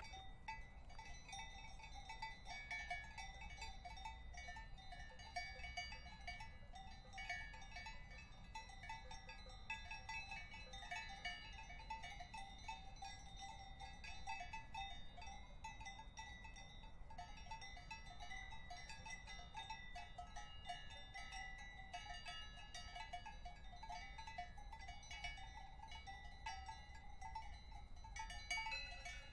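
Cowbells clanking continuously and irregularly, a jangle of overlapping ringing metallic tones with no steady rhythm.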